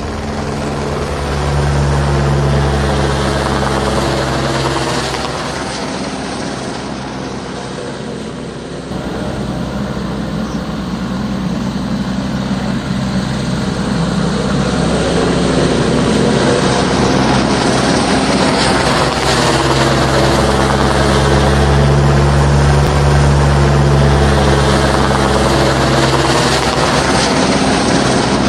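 Helicopter flying overhead, its rotor thrum steady and loud. It swells, eases off a little, then builds again to its loudest in the second half.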